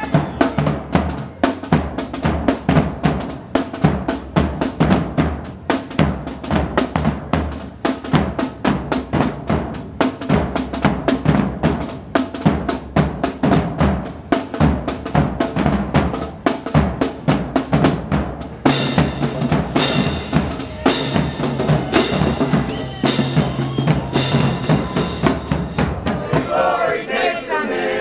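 Street drumline of marching bass drums, snare drum and hand cymbals playing a fast, dense beat. About two-thirds of the way in it changes to loud cymbal crashes about once a second over a steadier drum pulse. Near the end the drumming stops and a group of voices starts singing.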